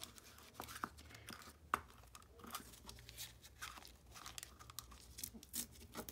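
Dried, used paper coffee filter being torn by hand around the rim of a plastic lid: soft, short rips and rustles of thin paper. There is a sharp click a little under two seconds in.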